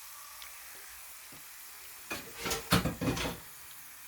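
Onion and garlic frying in oil in a pan with a steady faint sizzle. A little past halfway comes a burst of utensil scraping and knocking against the pan that lasts about a second.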